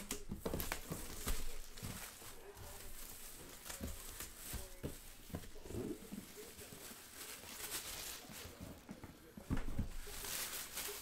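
Handling noises at a desk: scattered light taps and clicks with rustling, and a louder rustle about ten seconds in.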